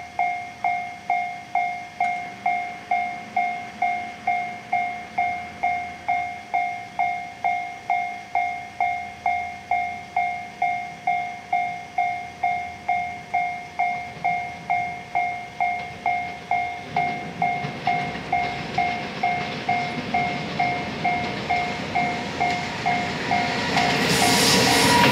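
A level-crossing warning bell rings steadily, about two dings a second. From about two-thirds of the way in, the rumble of an approaching freight train builds. Near the end the EF210 electric locomotive passes close, and its loud wheel and running noise drowns out the bell.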